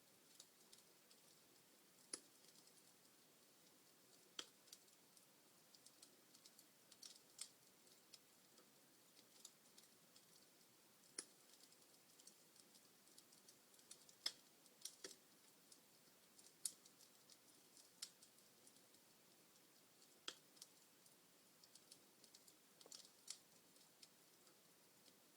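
Log fire in a fireplace crackling: irregular sharp pops and snaps, one or two a second, over a faint hiss.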